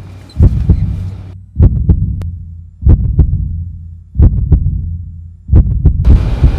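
Deep double thumps like a heartbeat, repeating about every second and a quarter over a steady low hum.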